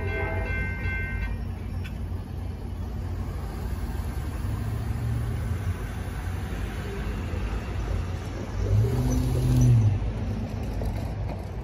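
A railroad crossing bell rings and stops about a second in as the gates start to rise. Then road traffic goes through over a steady low rumble: a pickup truck pulls away over the crossing, and a vehicle passes close near the end, the loudest moment.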